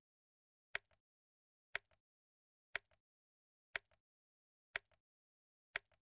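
Clock-tick sound effect: six sharp ticks, one a second. Each tick is followed by a fainter click just after, with dead silence between.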